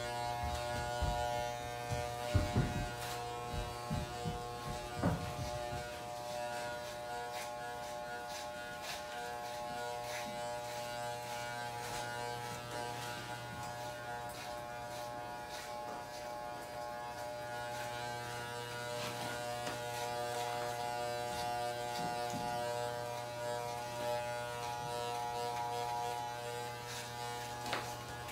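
Electric hair clippers buzzing steadily as they cut hair, with a few low knocks in the first several seconds.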